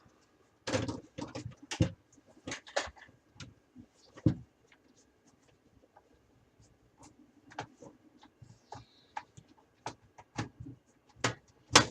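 Desktop PC case side panels being worked off by hand: scattered clicks, taps and light scrapes of sheet metal, with a sharp knock near the end.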